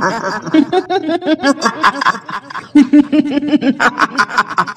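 A woman's high-pitched cackling laugh in rapid, repeated 'hihihi' notes: the kuntilanak ghost laugh of Indonesian horror. It breaks off briefly about two and a half seconds in, then goes on.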